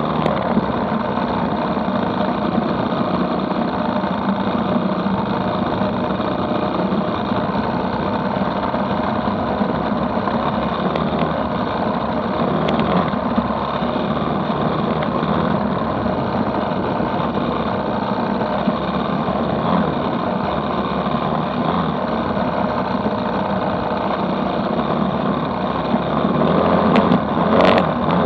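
Dirt bike engine running steadily at riding speed, heard from a chasing motorcycle on a dirt road, with a rougher, louder stretch near the end.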